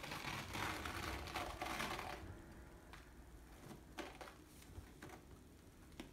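Self-adhesive elastic bandage crackling and rustling as it is unrolled and pressed around a leg stump, strongest for about the first two seconds, then fainter with a few soft clicks.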